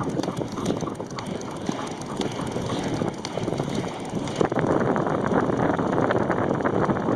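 Inline skate wheels rolling over pavement at speed, with wind buffeting the microphone; the rolling gets louder about four and a half seconds in.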